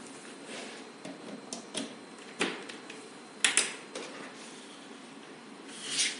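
Scattered light clicks and knocks of hard objects being handled, over a steady low hiss, with a short rushing swell near the end.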